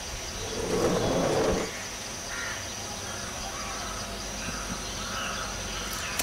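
Crows cawing several times over a steady outdoor background hiss, with a louder, harsh burst of sound about a second in.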